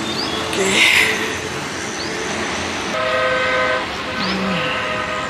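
Steady highway traffic noise with a long multi-tone vehicle horn that starts about three seconds in and sounds for about two seconds.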